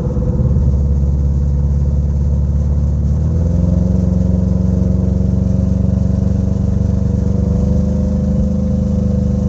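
Car engine running rough, with an uneven sound that its owner likens to a lawnmower; engine speed steps up about three and a half seconds in and then holds steady. The stored code points to a misfire on cylinder 3, which the owner hopes is a bad coil or coil wire but fears could be a blown piston.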